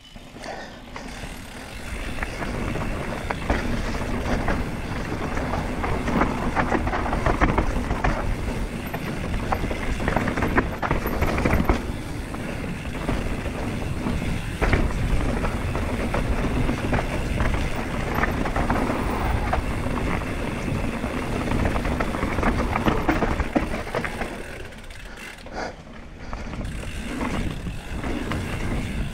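Mountain bike riding fast down a dirt forest trail: tyres rolling over dirt and roots, with the bike rattling over the bumps. The noise builds over the first couple of seconds and drops for a moment near the end before picking up again.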